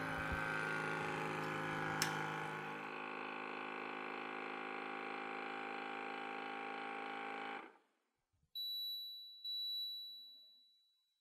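Vidia BL-001 vacuum blender's vacuum pump running with a steady hum as it draws the air out of the jar before blending. It cuts off about seven and a half seconds in, and the blender then gives two electronic beeps.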